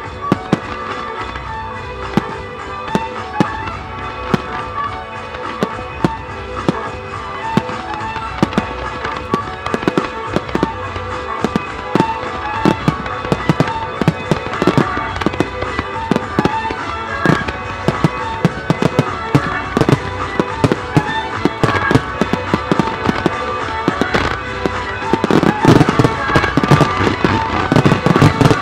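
Fireworks finale: sharp bangs and crackling, several a second, over accompanying music. About three seconds before the end it builds into a dense barrage of heavy booms as a wide line of large shells bursts.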